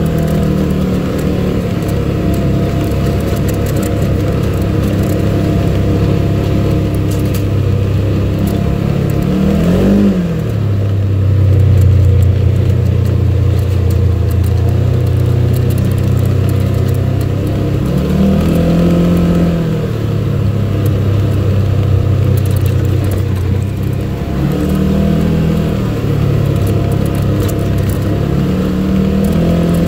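Polaris General side-by-side's engine running under way on a rough dirt trail, heard from inside the cab. The engine note stays steady for long stretches but dips and rises several times, about ten seconds in, again near the middle and twice near the end, as the throttle is eased and reapplied.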